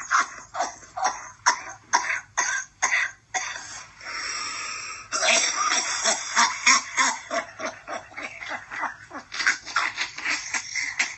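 A man coughing in a long fit of rapid, harsh coughs, about two a second, broken by a steady hiss about four seconds in.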